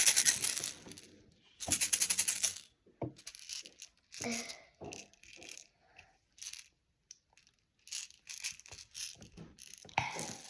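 Small plastic toy capsules rattling and clicking as they are handled: two quick runs of dense rattling in the first few seconds, then scattered light clicks and knocks.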